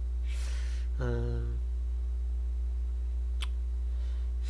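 Steady low electrical hum. Over it a man breathes in, gives a short closed-mouth "mm" about a second in, and a single sharp click sounds later on.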